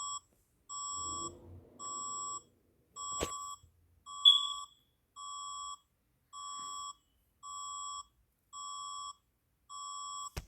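Emergency alert alarm: a steady electronic beep repeating about once a second, each beep about half a second long. A sharp click about three seconds in and a brief, loud high chirp just after it.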